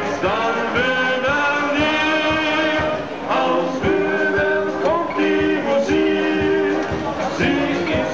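Bavarian brass band playing live, with a man singing into a microphone over the band and a steady low beat underneath.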